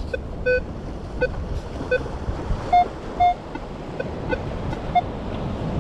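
Minelab Equinox metal detector giving a string of short, mid-pitched beeps as the coil is swept over a buried metal target reading about 20, a few of the beeps a little higher in pitch. Steady surf and wind noise runs underneath.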